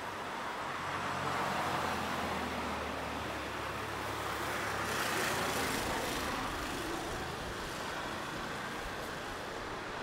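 Street traffic: a motor vehicle's engine running close by with a low steady hum, which fades after about six seconds, and a rush of hiss about five seconds in.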